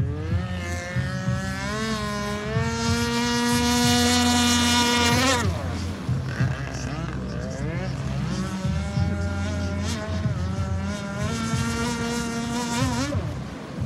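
26cc gas RC speedboat's two-stroke engine running at high revs, its pitch climbing for about five seconds and then falling off sharply as the throttle is let off. It winds up again and drops back once more near the end.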